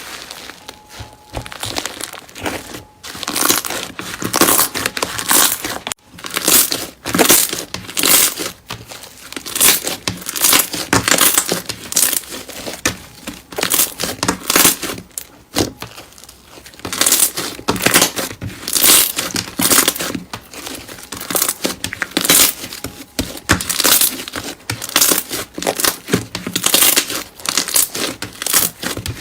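Slime being squeezed and pressed by hand, giving off crackling, crinkling noises in quick succession.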